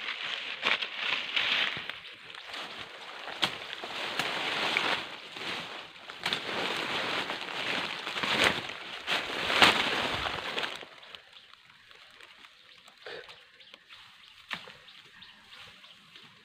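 Dense rustling of leaves and branches and crunching of dry leaf litter as someone pushes through thick undergrowth, with sharp snaps of twigs. The rustling stops about eleven seconds in, leaving only a few faint ticks.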